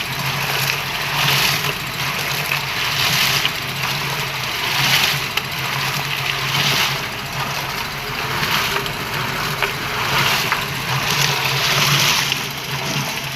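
Small concrete mixer driven by a motor on a 12-volt battery, running steadily with a low hum while the contents of the turning drum churn in a swishing surge about every two seconds.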